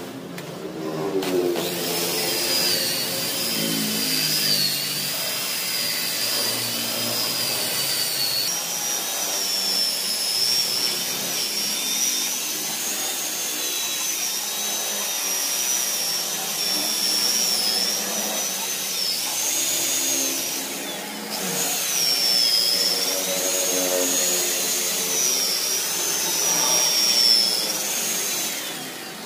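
Electric rotary polisher running with a high, slightly wavering motor whine as its pad works compound into dull car-door paint. It starts about a second and a half in, cuts out briefly about two-thirds of the way through, and stops near the end.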